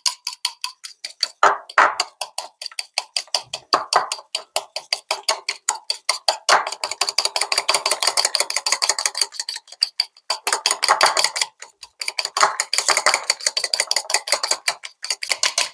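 Metal fork beating a thick paste in a ceramic bowl, clicking against the bowl several times a second, with a few short pauses.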